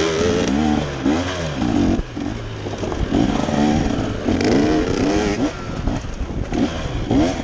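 KTM dirt bike engine revving in short surges, its pitch rising and falling over and over as the throttle is worked, with some rattle from the bike.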